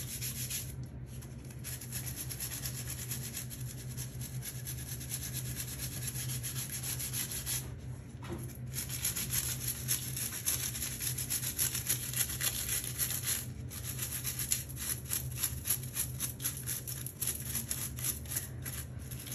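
Bristle brush scrubbing a soft foam bath toy: fast back-and-forth scratchy strokes, broken by a few short pauses.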